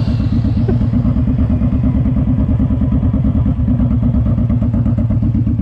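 Suzuki M109R's 1783 cc V-twin running at low revs, a steady, deep, evenly pulsing beat with no revving.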